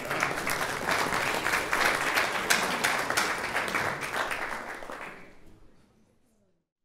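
Church congregation applauding, dense clapping that dies away about five seconds in.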